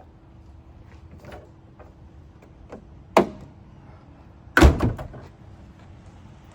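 Light clicks and a sharp snap about three seconds in, then a heavier slam with a few quick rattling knocks about a second and a half later: a Jeep Gladiator door being shut.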